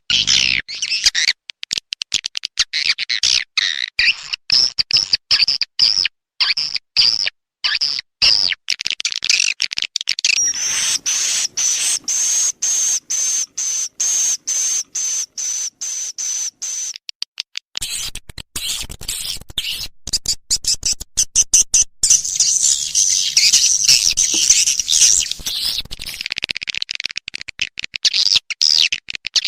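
Swiftlet call-sound lure recording, the kind played to draw edible-nest swiftlets into a bird house: rapid, high-pitched chattering twitters broken into quick pulses, with a steadier high, fast-pulsing trill from about ten to seventeen seconds in.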